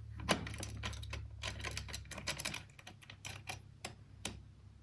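Irregular clicking and tapping of small metal hardware being handled: a bolt head slid along a jig's track and an angle bracket and wing nut knocking into place, several quick clicks a second.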